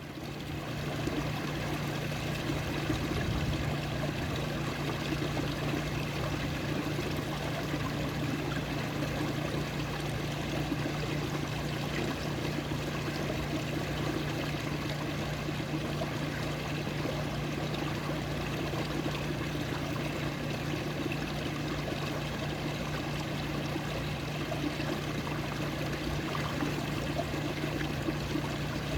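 Water flowing and trickling steadily, like a small stream, with a steady low hum underneath.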